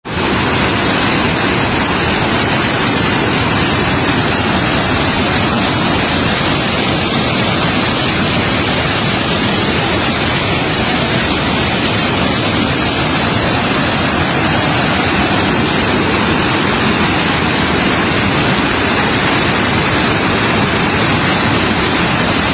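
Waterfall in flood: a loud, unbroken rush of heavy falling water that starts at once and holds steady throughout.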